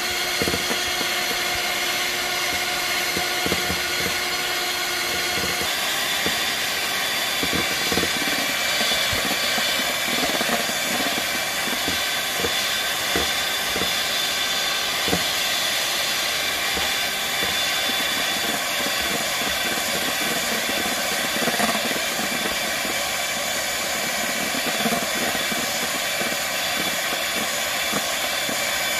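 Electric hand mixer running steadily, its twin beaters whipping egg whites into meringue in a stainless steel bowl: a constant motor whine over a whooshing hiss. The motor's pitch changes about six seconds in, and the beaters make scattered light knocks against the bowl.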